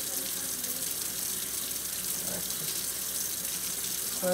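Kitchen faucet running steadily into the sink, an even rush of water.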